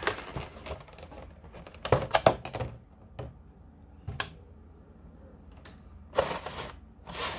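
Stiff plastic packaging being handled: a quick cluster of clicks and crackles about two seconds in, a few single ticks, then two short rustles near the end.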